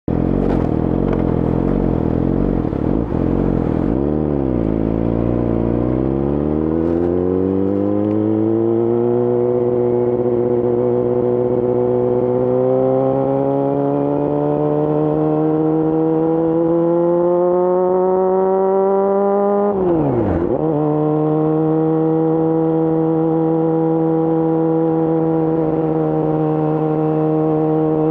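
2018 Yamaha YZF-R6's inline-four engine through an Akrapovic full exhaust, running under way with its note climbing slowly as it pulls. About twenty seconds in the note dips sharply and picks up again at a lower pitch, an upshift, and the engine then runs steady.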